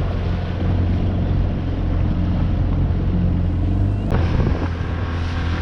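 Dinghy outboard motor running steadily under way, with a steady hum and some wind and water noise. About four seconds in there is a brief click, and the engine note shifts after it.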